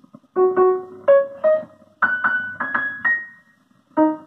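Piano-like keyboard tune, a run of single notes with a short pause near the end, played through a small IC audio amplifier under repair. The amplifier has a fault that puts a crackling 'khad-khad' noise into the music while it plays.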